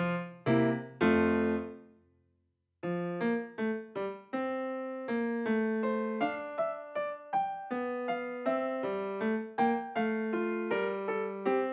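Solo piano background music. A phrase dies away to silence about two seconds in, and the piano starts again a moment later.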